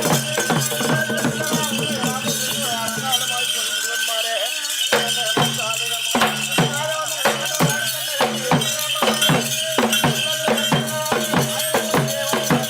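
Traditional-style percussion music with a steady drumbeat, a jingling rattle and a wavering melodic line over a held drone. The low drone drops out for about a second around four seconds in, then returns.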